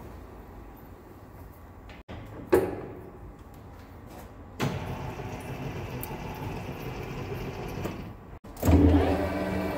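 Centre lathe at work, heard in short edited clips: a sharp knock a couple of seconds in, steadier running from about halfway, and a louder steady machine hum with a fixed pitch starting near the end.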